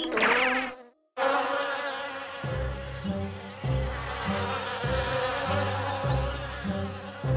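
A swarm of bees buzzing steadily, as a cartoon sound effect. It comes in after a short musical flourish and a moment of silence about a second in. A plodding low bass line joins the buzz a couple of seconds later.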